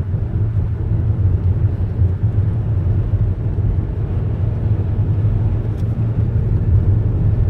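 A car driving through a snowstorm: a steady low rumble of engine, road and wind noise.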